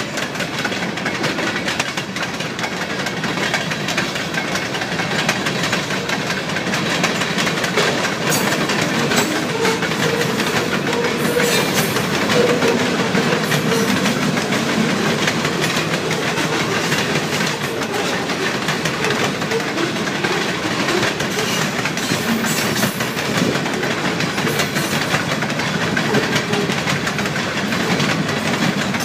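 Freight train cars (tank cars, gondolas and boxcars) rolling steadily past at close range: a continuous rumble of steel wheels on rail with clickety-clack over the rail joints.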